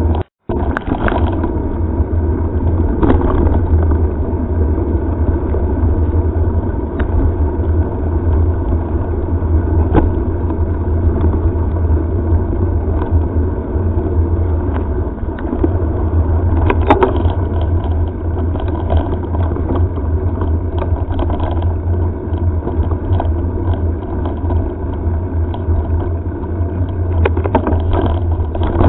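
Steady rumble from a helmet-mounted camera on a mountain bike riding a gravel forest track: wind on the microphone and tyres rolling over gravel, with a few sharp knocks from bumps. The sound cuts out for a moment just after the start.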